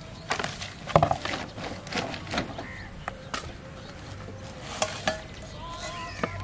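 Rustling and crinkling of a woven plastic sack being rummaged through by hand, with irregular light clicks and knocks as a plate is taken out; the loudest crackle comes about a second in.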